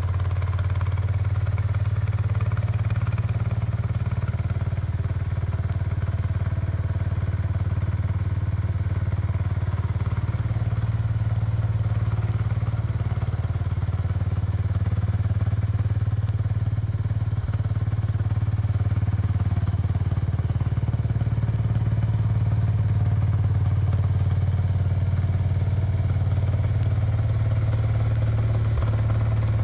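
Garden tractor engine running steadily at an even speed, a constant low hum, with a couple of faint clicks.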